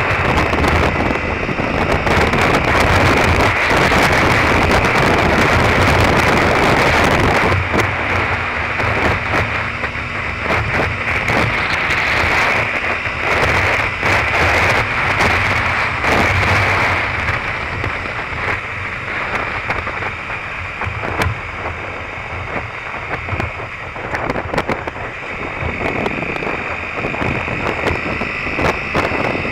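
Wind rushing over the microphone of a Derbi Terra Adventure motorcycle riding at road speed, with the bike's engine running steadily underneath. The rush is loudest for the first seven seconds or so, then eases a little and turns more gusty.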